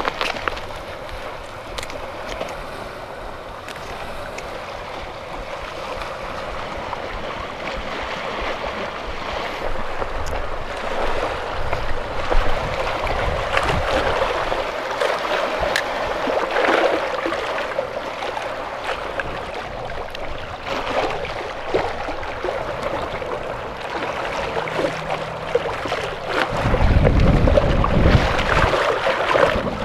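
Small sea waves washing and lapping against granite breakwater rocks, with scattered small clicks and knocks. Near the end, wind buffets the microphone in a heavy low rumble.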